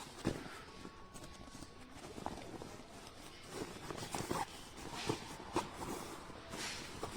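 Handling noises from a waterproof car seat cover being fitted onto a back seat: fabric rustling with scattered light knocks and clicks.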